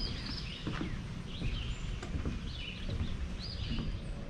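Small birds chirping in short repeated phrases, over a constant low rumble.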